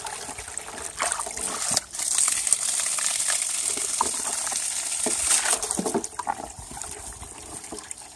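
Well water from a 100-watt submersible pump gushing out of a hose into a plastic basin. It gets louder and splashier through the middle, as the hose is lifted and the stream sprays out onto the ground, then settles back into the basin near the end.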